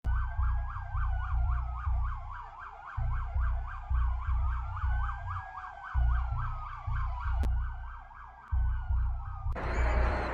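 Emergency vehicle siren sounding two tones at once, a fast yelp over a slow rising-and-falling wail, with an uneven deep low throb underneath. It gives way to a loud steady hiss near the end.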